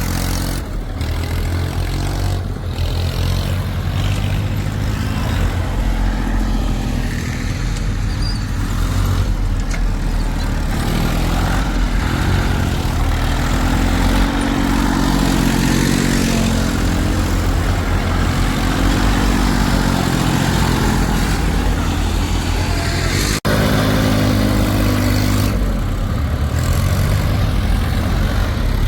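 Heavy diesel engines of a backhoe loader and a tractor running, with the engine note rising and falling several times as it revs under load. The sound breaks off sharply for an instant about two-thirds of the way through.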